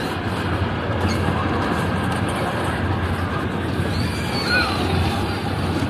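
Fairground kiddie car ride turning: a steady low machine hum under a wash of crowd chatter, with a faint voice about four seconds in.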